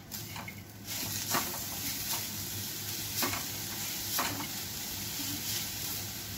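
Grated coconut and jaggery sizzling in a hot steel kadhai with ghee as the jaggery melts, stirred with a wooden spatula that scrapes the pan about once a second. The sizzle comes in about a second in.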